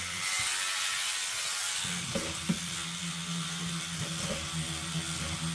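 Small battery-powered scrub brush buzzing as it scrubs a wet faucet base, over a steady hiss of bristles and water. The motor hum is faint at first and runs steadily from about two seconds in.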